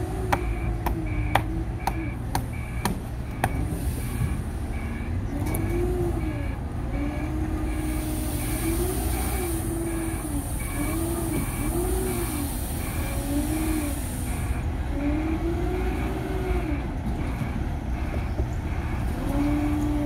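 Diesel engines of a concrete pump and a concrete mixer truck running during a slab pour, a steady low rumble with the engine pitch rising and falling every second or so. A short high beep repeats a little under twice a second throughout, with a few sharp clicks in the first few seconds.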